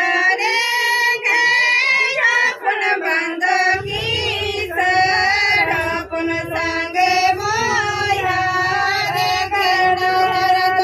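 A Santali wedding (bapla) song sung without instruments, a high voice holding long, wavering notes. A low rumble comes in about four seconds in.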